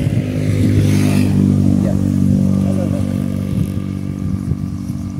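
A motor vehicle engine idling steadily, a low even hum.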